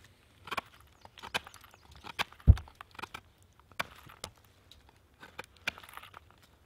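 A knife shaving and scraping the cut end of a resinous pine branch in short, irregular strokes, about one or two a second. One low thump a little past two seconds in is the loudest sound.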